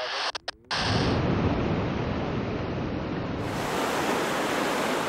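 Steady rushing noise of wind and sea water aboard a moving ship. It sets in about a second in, after a couple of brief dropouts.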